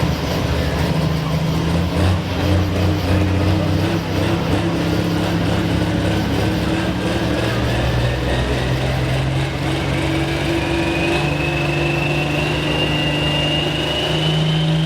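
Modified farm pulling tractor's engine running loudly and steadily, its tone stepping up and down a few times, with a thin high whine that climbs slowly and steadily in pitch through the second half.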